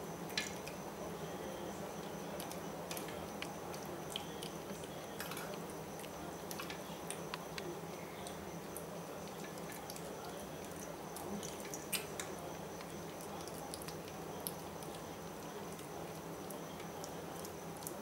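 Bengal kitten eating wet cat food from a stainless steel dish: small wet chewing and lapping clicks, irregular throughout. A few sharper clinks of a metal spoon against the tin can or the steel dish stand out, one near the start and one about twelve seconds in.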